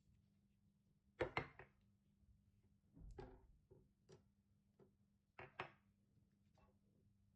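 Irregular knocks and clatter of objects being handled and set down on a hard surface: a sharp double knock about a second in, a short cluster around three seconds, a few lighter taps, and another double knock near the end.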